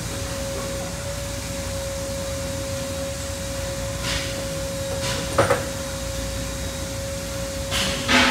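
Steady gym air-handling hum with one constant whine. Three short rushes of noise break in about four, five and a half and eight seconds in; the later two are the loudest.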